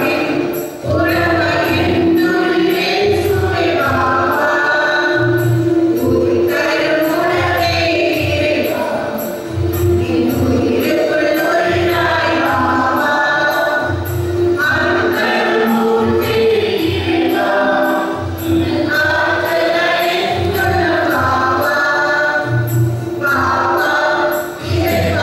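Church choir singing a hymn with instrumental accompaniment: a low bass pulse and a steady percussion beat of about two strokes a second.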